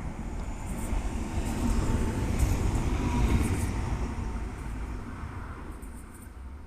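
A Hiroden Miyajima Line train passing by: a low rumble that swells to its loudest about three seconds in and then fades away, with faint light clicks over it.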